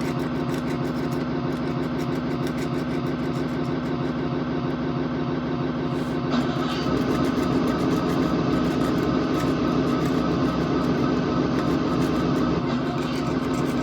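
A car engine running steadily at an even pitch, a continuous drone that gets slightly brighter about six seconds in.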